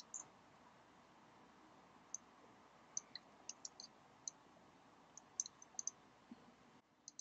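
Faint, scattered clicks of a computer keyboard and mouse, about a dozen spread through the second half, over a quiet room hiss.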